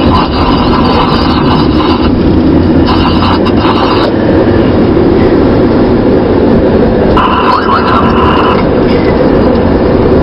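Road and engine noise inside a moving car's cabin, loud and steady, with a higher hum that drops out about four seconds in and comes back briefly later.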